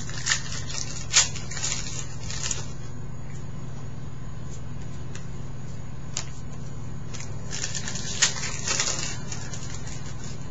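Crinkling and rustling of a foil trading-card pack wrapper being opened and the cards handled, in short crackly spells, the sharpest about a second in and again around eight seconds, over a steady low hum.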